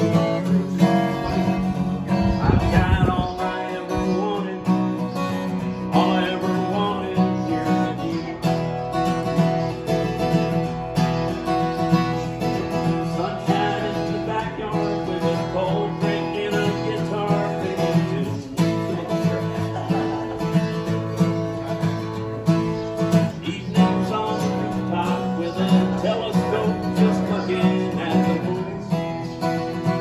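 Steel-string acoustic guitar played solo, a continuous instrumental passage of picked and strummed chords. There is a brief low thump about two to three seconds in.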